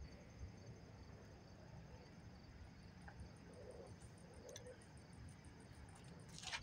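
Near silence: faint crickets chirping in a rapid, even rhythm, with a brief scuff near the end.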